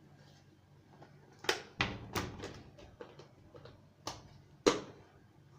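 Kitchenware being handled: several separate knocks and clicks, a few of them louder than the rest.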